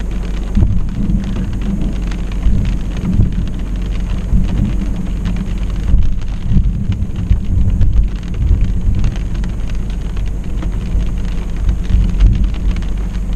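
Rain pattering on a car's windshield and roof, with low rumbles of thunder from a nearby lightning storm coming and going.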